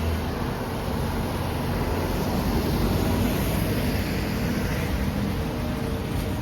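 Strong wind blowing over the microphone: a loud, steady rush of noise that swells a little around the middle.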